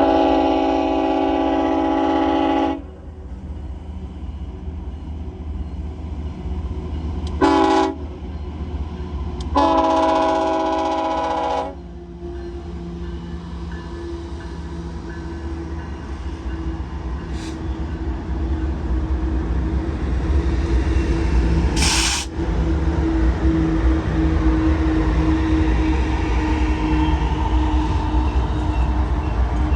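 BNSF freight locomotive's multi-chime air horn sounding three blasts: a long one, a short one about 7.5 s in, and another long one ending near 12 s. Then the lead locomotives, in dynamic braking, approach with a steady drone and deep rumble that grow louder, broken by one short sharp burst about 22 s in.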